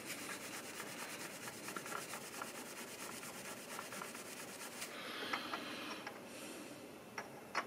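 Polishing rubbed back and forth over the bare die-cast zinc body of a toy car: a steady, rapid rubbing that turns lighter and higher, with a few small clicks, about five seconds in.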